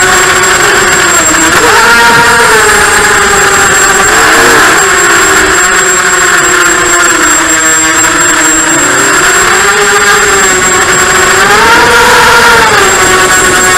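Brushless motors (Emax 1806 2280kv) spinning HQ 5045 bullnose props on an FPV racing quadcopter, heard through the onboard camera's mic: a loud motor-and-prop whine. Its pitch rises and falls repeatedly as the throttle changes.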